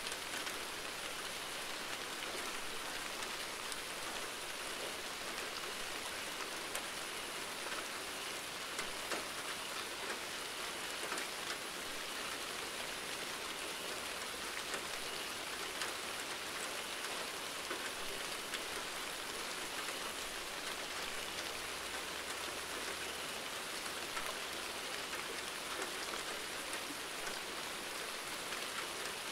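Steady rain falling, an even hiss with scattered drop taps.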